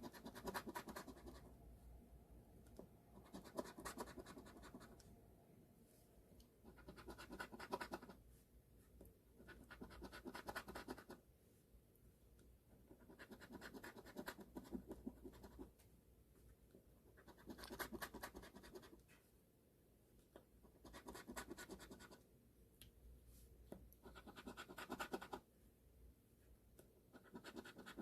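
Scratch-off lottery ticket being scratched: about nine short bouts of scraping, each a second or so long, with brief pauses between them.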